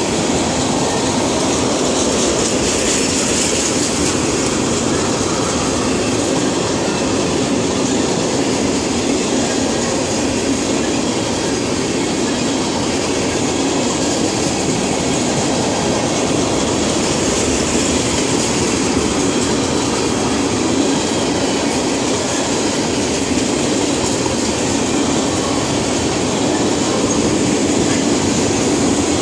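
Freight train of tank cars rolling steadily past at close range: a continuous, even rush of steel wheels on rails that holds at the same loudness throughout.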